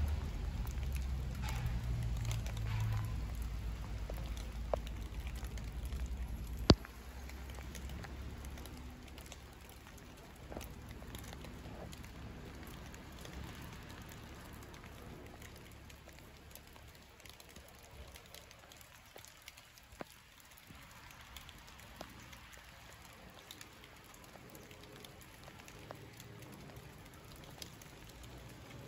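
Light rain pattering and dripping, with scattered small ticks. A low rumble fills the first several seconds and stops with one sharp click.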